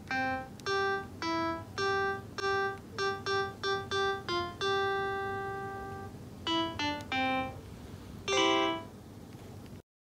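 A short, simple piano tune of single notes one after another, with one note held for over a second about halfway through and a chord near the end; it cuts off abruptly just before the end.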